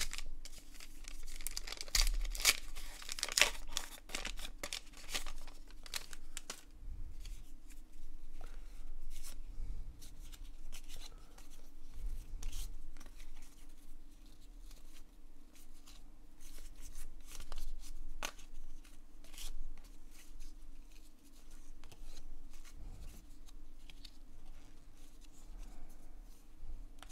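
Foil card-pack wrapper crinkling and tearing open during the first few seconds, then a long run of soft clicks and slides as a stack of baseball cards is flipped through one card at a time.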